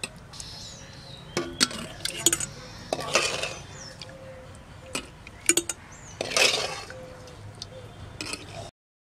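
Steel spoon clinking against a glass jar and a metal pan as mango pickle is spooned from the pan into the jar: several sharp clinks, and two longer scraping sounds about three and six and a half seconds in.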